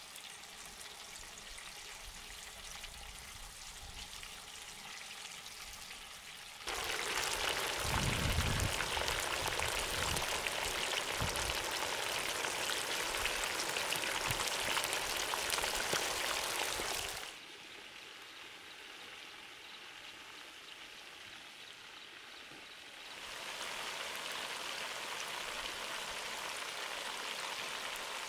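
Chicken drumsticks deep-frying in a large wok of hot oil, a steady sizzling and bubbling hiss. It gets much louder about seven seconds in, drops back about seventeen seconds in, and rises again a few seconds before the end.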